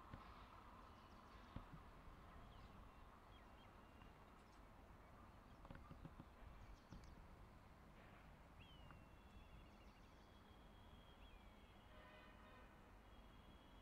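Near silence outdoors with faint high chirps and whistles and a few faint clicks. Near the end, a distant train horn begins to sound faintly.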